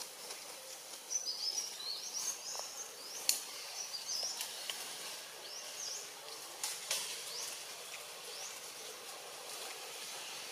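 Forest ambience: a steady high hiss with quick, high-pitched chirping calls, in clusters from about a second in to about four and a half seconds and again near seven seconds. A few sharp clicks stand out, the loudest at about three seconds in.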